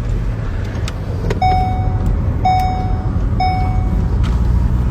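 Heavy machinery running with a steady low rumble. Three clear ringing metallic tones sound about a second apart, each fading away, with a couple of faint knocks before them.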